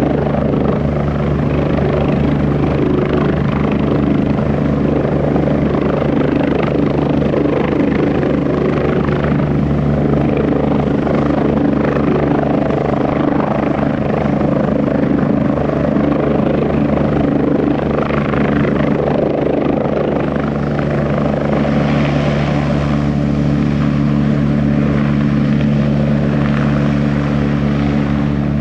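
US Army Eurocopter UH-72A Lakota helicopter hovering just above the ground: a loud, steady beat from its rotor blades over the sound of its twin turboshaft engines.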